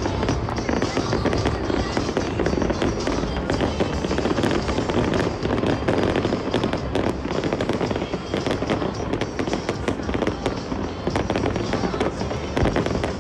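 Fireworks display: many shells bursting and crackling in a dense, unbroken run of pops and bangs, with music playing alongside.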